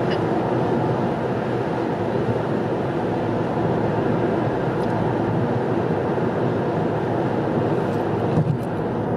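Steady road and engine noise of a car driving at highway speed, heard inside the cabin.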